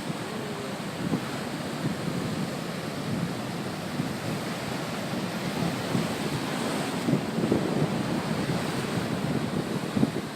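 Steady rushing water, with wind buffeting the microphone in gusts.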